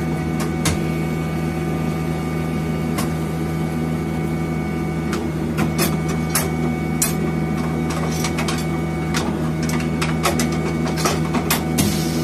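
Tyre changer at work: its motor hums steadily while the tyre and tools clatter with scattered clicks and knocks, busiest in the second half.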